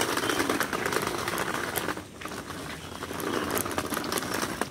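Small wheels of a hand-pulled cart rattling over a paved path, a dense clatter of fast clicks that starts suddenly and eases for a moment about two seconds in; the wheels are called really noisy.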